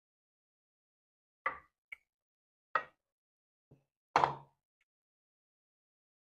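Close-miked eating sounds of fufu with slimy ogbono soup: five short wet smacks and plops of chewing and swallowing, the loudest about four seconds in, with silence between.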